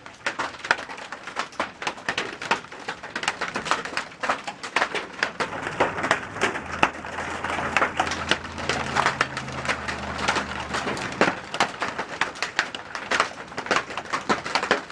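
Hail about the size of quarters pelting the house and ground, a dense, irregular patter of sharp clicks and knocks. A low hum sits underneath it from about five to eleven seconds in.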